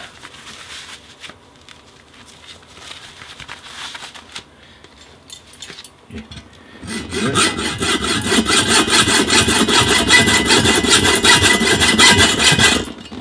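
Hacksaw cutting through the stainless steel tube handle of a ladle, in quick back-and-forth strokes. It starts about seven seconds in after faint handling sounds and stops abruptly near the end.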